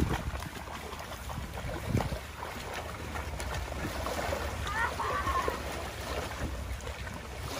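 Children splashing as they wade out into lake water, over a steady low rumble of wind on the microphone and small waves. A child calls out briefly about five seconds in.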